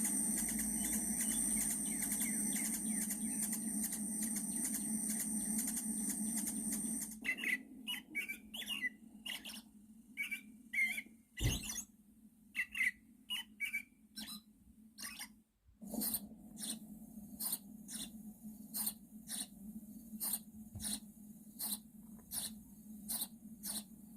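Recorded animal calls played back: short high chirps and squeaks in the middle, then a run of sharp clicks over a steady hum.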